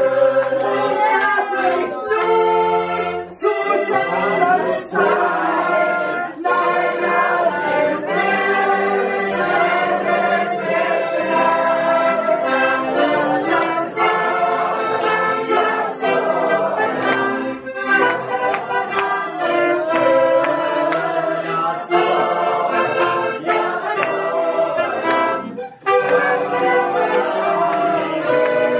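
Live accordion and trumpet playing a lively folk tune, with the audience clapping along on the beat.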